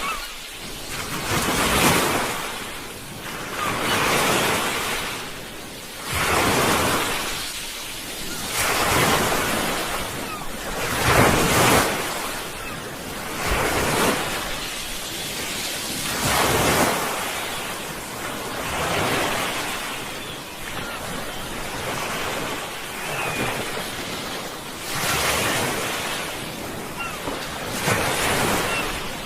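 Sea waves breaking on the shore, a rushing wash that swells and falls back every two to three seconds.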